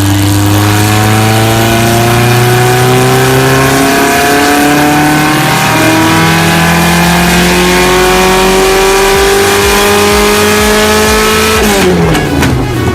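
Car engine held at high revs, its pitch climbing slowly and steadily for about eleven seconds, with a brief break about halfway, then falling sharply near the end as the revs drop.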